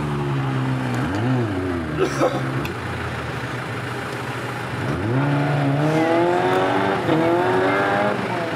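Land Rover Defender engine being revved during a mud recovery tow: a short rev about a second in, then revs climbing at about five seconds and held high before dropping back near the end. A few short clattering knocks come around two seconds.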